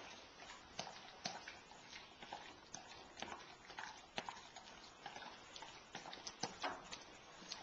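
Horse in a stall, close up: faint, irregular clicks and knocks, a few every second, with no voice or steady tone.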